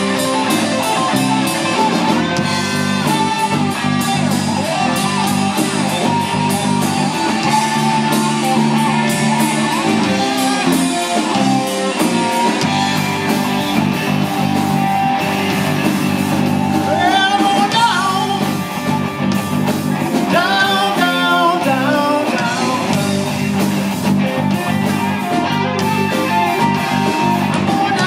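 Live rock band playing through a PA: electric guitars, bass guitar and drum kit, with a man singing.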